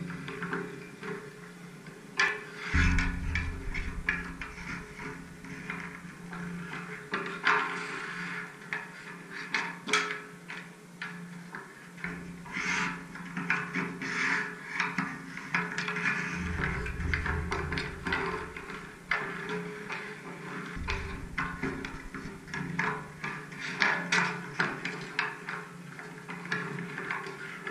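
Music with steady held tones, over irregular sharp knocks of hockey sticks slapping pucks on outdoor ice.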